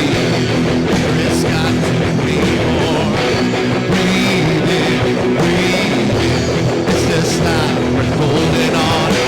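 Rock band playing live, with electric guitars over bass and drums in a passage with little or no singing.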